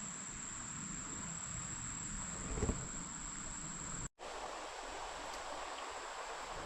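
Creekside ambience: insects chirring in a steady high drone, with a soft thump near three seconds in. After a brief cut about four seconds in, the sound of the creek flowing joins the insects.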